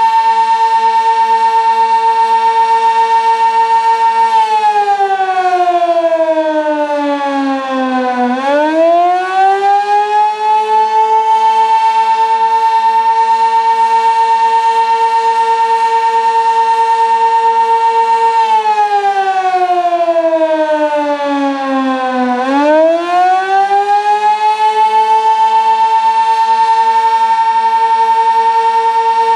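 Sentry 16V1T-B outdoor warning siren sounding the attack signal: a loud, steady high tone that slides down over about four seconds and swings back up to full pitch, twice.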